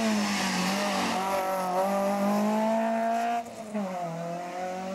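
Citroën C2 rally car engine revving hard as it powers through a hairpin. About three and a half seconds in, the revs dip and the sound drops, then climb again.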